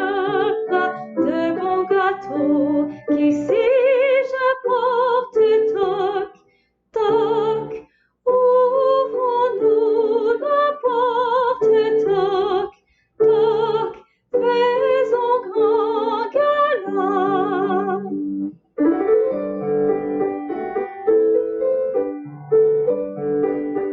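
A woman singing a Provençal Christmas carol in a trained classical voice with wide vibrato, accompanied by piano. The sound cuts out briefly twice, at about 7 and 13 seconds. After about 18 seconds the voice stops and the piano plays on alone.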